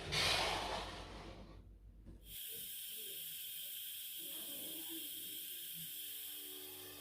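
Steady steam hiss from cookware, starting about two and a half seconds in, after a brief rushing noise at the start that fades away.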